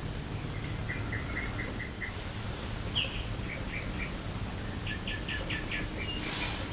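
Small songbirds chirping in quick runs of short notes, one run about a second in and a longer one of about eight notes near the end, over a steady low background rumble.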